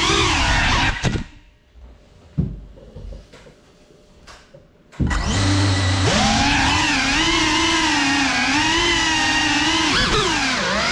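Brushless motors and propellers of a GEPRC CineLog35 cinewhoop FPV drone whining with a wavering pitch, heard from the drone's onboard camera. About a second in the motors stop, a few short knocks follow, and about five seconds in they start again and rise back to a steady whine that wavers with the throttle.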